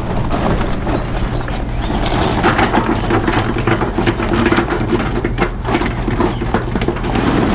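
Charcoal briquettes poured into the metal hopper of a Char-Griller 980 gravity-fed charcoal smoker: a dense clatter of many small knocks, heaviest from about two seconds in, over a steady low hum.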